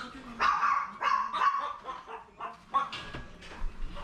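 Small Maltese dogs barking in a quick, uneven run of short barks.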